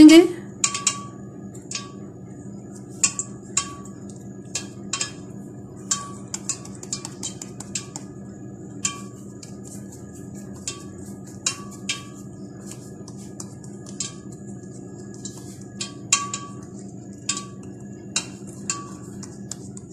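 Irregular light clicks and clinks, about one every second, over a steady low hum.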